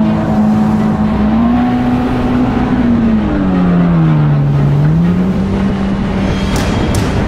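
Kawasaki STX-15F jet ski's four-stroke engine running at speed, with water rushing under the hull. The engine pitch dips for a second or so around the middle as the throttle eases, then rises again.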